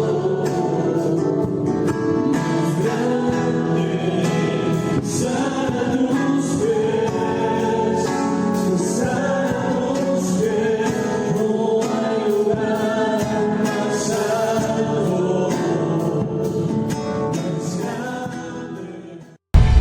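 Worship song performed by a church choir with instruments: several voices singing together over a steady beat, fading out near the end.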